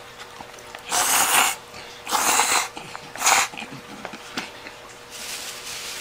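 A person slurping spaghetti peperoncino off a fork. There are three noisy slurps about a second apart, the third shorter, then a fainter one near the end.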